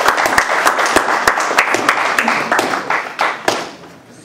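Audience applauding, a dense patter of hand claps that thins out and dies away about three and a half seconds in.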